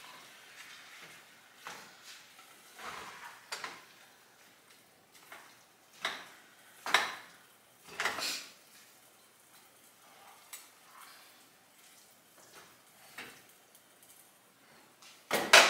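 Cooking utensil knocking and scraping against cookware on the stove: scattered clinks and clatters, the loudest few between about six and eight seconds in.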